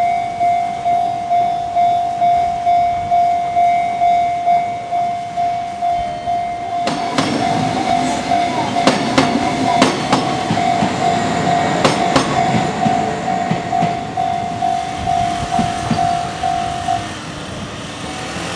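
Japanese level-crossing warning bell ringing about twice a second as a Kintetsu electric train passes through the crossing from about seven seconds in, its wheels clacking sharply over the rail joints. The bell stops near the end as the train clears.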